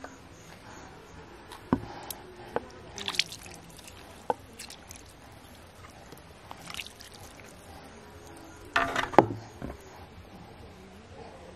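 Handling sounds at a wooden table and mortar: a few sharp knocks and clicks in the first half, then short rustling bursts from a plastic sheet or bag, loudest about nine seconds in.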